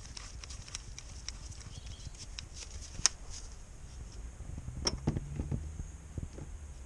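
Scattered light clicks and taps of a cordless drill being handled as a bit is fitted and the drill is set in place, with a sharp click about three seconds in and a cluster of knocks around five seconds in.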